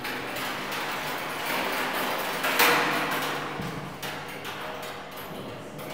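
Metal spoons driven by a small motor inside a hanging steel oil drum, clattering and scraping against the drum wall in a continuous metallic rattle. It swells to its loudest about two and a half seconds in.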